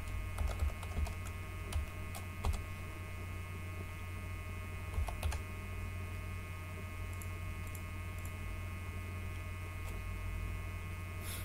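Computer keyboard keys clicking as code is typed, in scattered keystrokes over the first few seconds and a few more about five seconds in. A steady electrical hum runs underneath.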